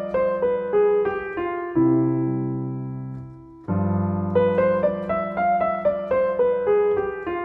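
Piano playing a quick bebop line of even eighth notes over a held low chord. The line resolves onto a final chord about two seconds in, which rings and fades. The same line then starts again a couple of seconds later.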